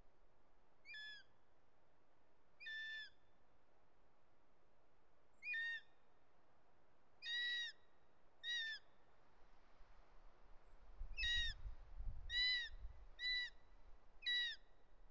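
Young Bonelli's eagle giving a series of shrill food-begging screams, nine short calls that bend downward in pitch, one every one to three seconds and louder in the second half. A low rumble sits under the calls for a few seconds near the middle.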